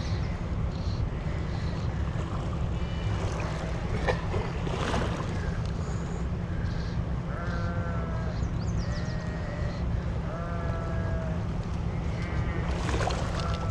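Steady low rumble of wind on the microphone over the running water of a shallow creek. Three short, even-pitched animal calls come in the second half, about a second and a half apart.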